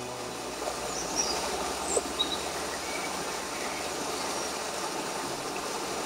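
Steady running water, with a few faint high bird chirps over it and two short sharp clicks about two seconds in.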